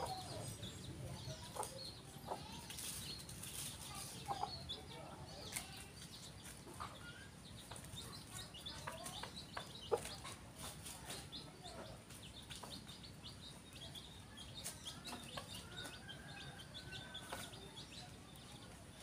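Free-range village rooster clucking now and then, with faint short high chirps throughout and a single sharp click about halfway through.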